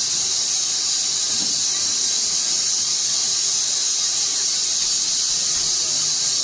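Steam hissing steadily from a 1941 Robert Stephenson & Hawthorns steam locomotive standing at rest, a constant high-pitched hiss.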